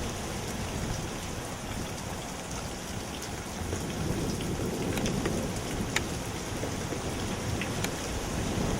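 Hurricane outer feeder band: steady heavy rain with gusting wind giving a low, fluctuating rumble, and a few sharp drip ticks.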